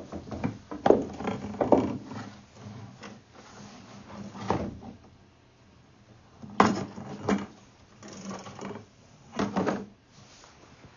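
Irregular knocks and clunks of objects being handled: a cluster of them in the first two seconds, then single clunks spaced a few seconds apart.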